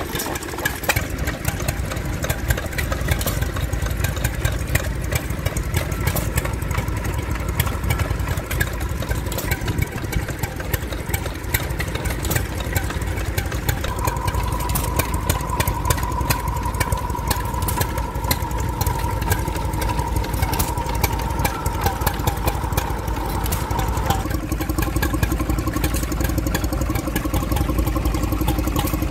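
Vintage stationary engines running, first a 1921 Lister L 5 hp and then Petter engines, with a rapid, steady beat of firing knocks. A steady whine joins in about halfway and stops several seconds later. The engine note changes near the end.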